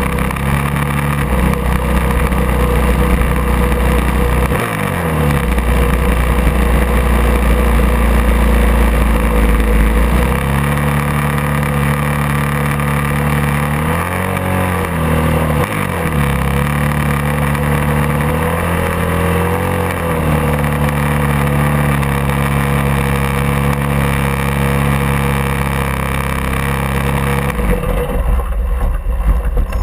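Racing motorcycle engine running at low revs while the bike is ridden slowly, with a couple of brief rises and falls in revs. The engine note stops near the end, leaving a low rumble of wind on the microphone.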